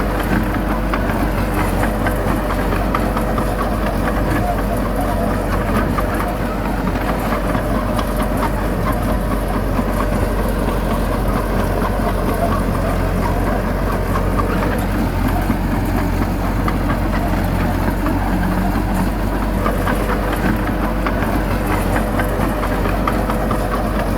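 Heavy earth-moving machine's diesel engine running steadily, with a fine mechanical clatter over it.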